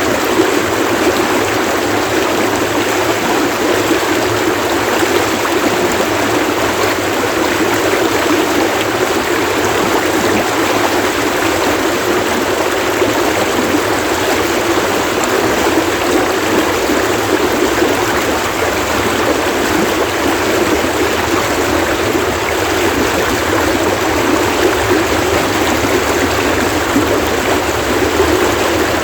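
Running stream water splashing and rushing, a steady, unbroken wash of sound.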